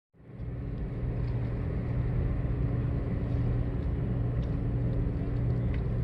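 An engine running steadily: a low rumble with a constant hum over it.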